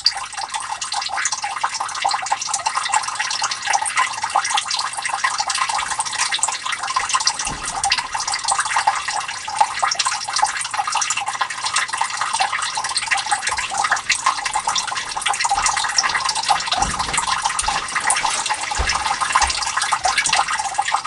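Water trickling and splashing steadily into a sump pit, filling the basin while the sump pump waits for its float to rise and has not yet switched on.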